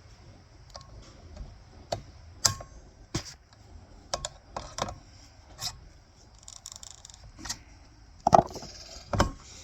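Small brass and stainless steel propane valve parts clinking and knocking as they are handled, about a dozen irregular metallic clicks with the loudest knocks near the end.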